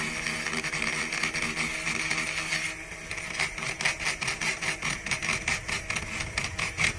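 Cordless brushless rotary tool spinning a grinding bit inside the aluminium intake port of a Predator 212 cylinder head: a steady high whine, then from about three seconds in a rapid, uneven chatter as the bit bites and skips on the port wall.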